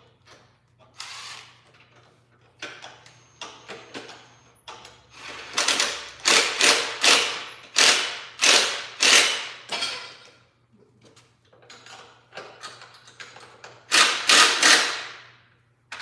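Hand ratchet wrench worked back and forth on a bolt, each swing giving a short burst of clicks. There are a few scattered strokes at first, then a steady run of about two strokes a second through the middle, and another quick run near the end.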